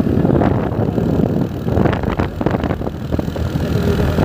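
Wind buffeting the microphone on a moving vehicle, in irregular gusts over steady low vehicle noise.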